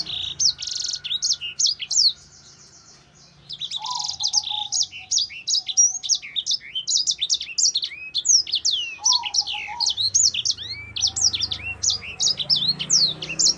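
A caged sanger finch singing a fast, varied song of quick rising and falling whistled notes mixed with buzzy trills. It pauses briefly about two seconds in, then runs on unbroken.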